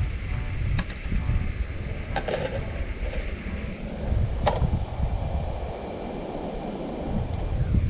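Metal clinks and clatter as a wire rack is set onto a small gas stove, then a sharp clank as a steel frying pan of pork and soaked hardtack is set down on it about halfway through. The food then sizzles, swelling over the next few seconds. Wind rumbles on the microphone throughout.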